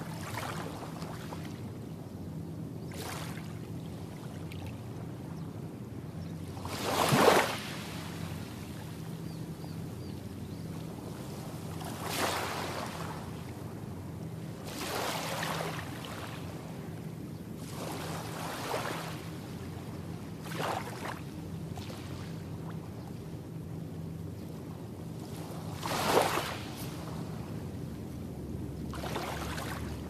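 Small waves of a calm sea breaking on a sandy beach. Each one comes in as a short wash every few seconds, loudest about seven seconds in and again near the end, over a steady low hum.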